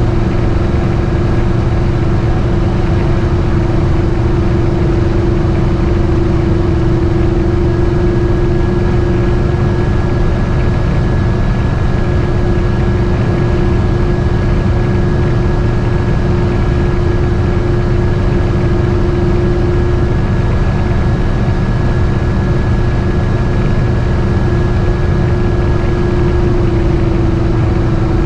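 GMC motorhome engine and road noise at a steady cruising speed while towing a trailer and boat: a constant low rumble with a steady droning hum that does not change.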